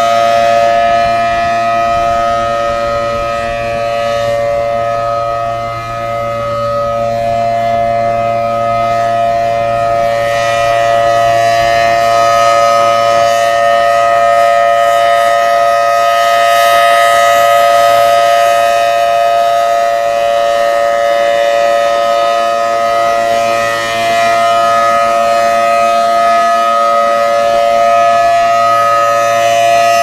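Federal Signal Thunderbolt 1000AT outdoor warning siren sounding the Alert signal: a loud, steady chord of several tones with no rise or fall in pitch. The loudness swells and fades slowly as the rotating siren head turns, dipping about six seconds in and again near the end.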